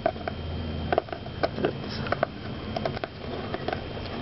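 Fingernails picking and scratching at the taped edge of a cardboard box lid, making scattered small clicks and scrapes.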